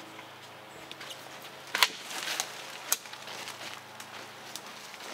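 Twigs and brush snapping and rustling in leaf litter, with two sharp snaps about two and three seconds in, the first the loudest, among fainter scattered cracks.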